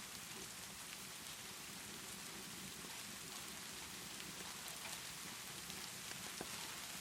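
Steady rainfall pattering, with a few faint sharp pops through it.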